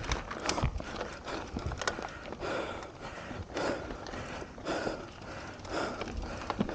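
Mountain bike rolling down a dirt singletrack: tyres crunching over the packed dirt and the bike knocking over bumps, a few sharp knocks in the first second. Over it, the rider's hard breathing comes in regular breaths about once a second.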